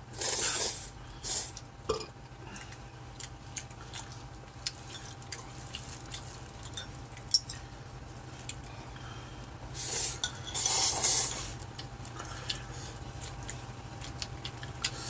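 Noodles being slurped in loud hissing pulls near the start and again about ten seconds in, with chopsticks clicking and tapping against bowls in between.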